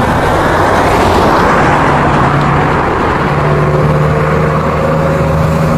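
A 2012 Daihatsu Gran Max pickup driving, with its engine and road noise heard from inside the cab: a steady, loud engine note over a broad rush of road noise.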